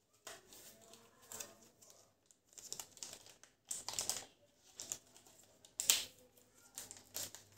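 Small clear plastic packet crinkling as it is handled and cut open with a knife: a run of short, irregular rustles, the loudest about six seconds in.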